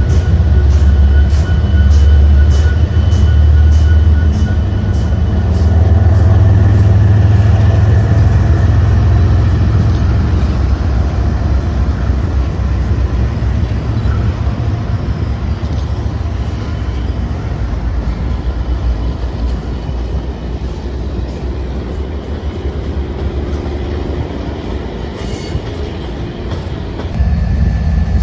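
A train rolling past: a heavy, loud rumble for the first several seconds that then gradually fades, with faint regular clicks in the first part.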